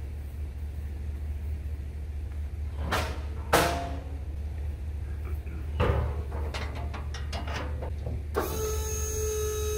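Idling vehicle engine, a steady low rumble, with a few sharp knocks about three and six seconds in. Near the end a steady sound of several held tones comes in.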